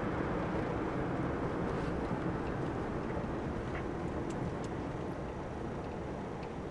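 Car being driven at steady speed, heard from inside the cabin: an even rumble of engine and tyre road noise that eases slightly toward the end.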